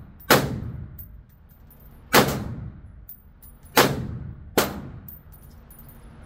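Modified AR-style rifle firing four shots at uneven intervals, each echoing off the walls of an indoor range, with a fifth shot right at the end. Faint high tinkling between shots as spent brass casings land.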